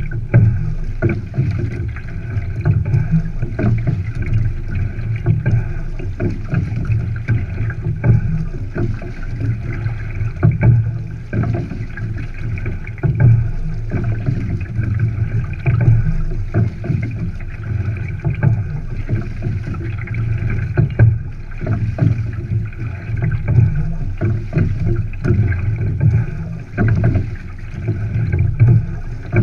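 Single scull under way: a steady rush of water along the hull and wind on the microphone. The sound swells about every two and a half seconds with each oar stroke.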